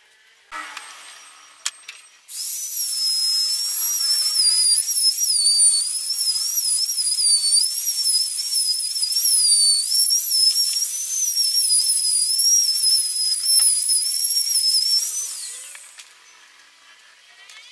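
Electric trim router with an edge guide cutting a groove along a laminate-faced board: a loud high whine whose pitch wavers as the bit bites into the wood. It starts about two seconds in and winds down near the end.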